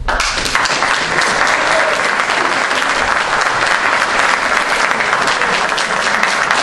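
Audience applauding: dense clapping that breaks out suddenly and holds steady.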